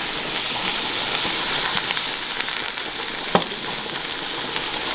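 Plant-based lardons, onions and soy cream sizzling steadily in a non-stick frying pan as a wooden spatula stirs them, with a single knock a little over three seconds in.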